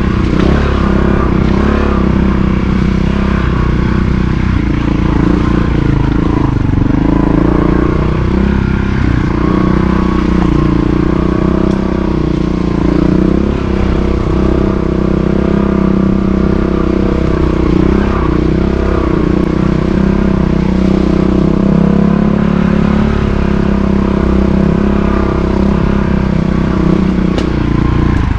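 Montesa Cota 4RT trials motorcycle's four-stroke single-cylinder engine running at low, fairly steady revs as it is ridden, its pitch rising and falling slightly with small throttle changes.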